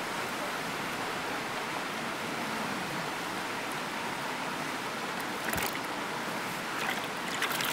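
Steady rushing of water, with a few brief splashes or knocks about five and a half seconds and seven seconds in.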